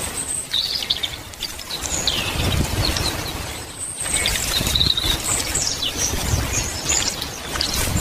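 Small birds chirping and twittering over a steady rushing outdoor hiss, with low rumbling underneath; the sound drops out for an instant about halfway through.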